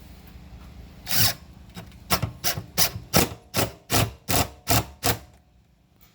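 Power drill with a square-drive bit driving a screw into a cabinet, in about ten short bursts, two or three a second, that stop about five seconds in.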